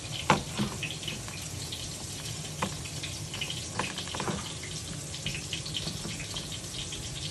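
Flour-dredged fish pieces frying in hot oil: a steady sizzle with scattered pops and crackles.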